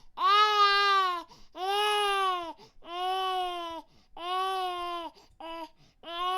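Infant crying: a run of about five drawn-out wails, each rising and falling in pitch over roughly a second, with short catches of breath between them.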